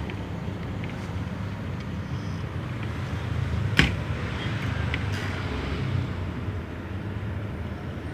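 Steady low background rumble with one sharp click a little before the middle and a few fainter ticks.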